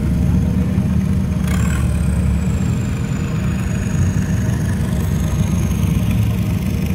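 A vehicle engine running steadily, with a thin high whine that rises about a second and a half in and then slowly sinks.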